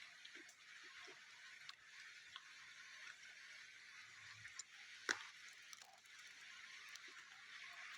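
Faint steady hiss of rain, with a few small clicks and one sharp click about five seconds in.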